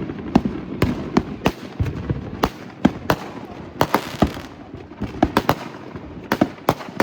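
Fireworks going off: an irregular string of sharp bangs, sometimes several within a second, with crackling between some of them.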